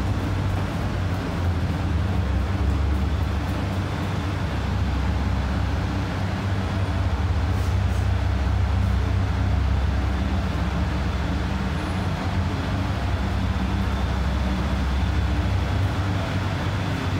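Underground subway station ambience: a steady low rumble and hum.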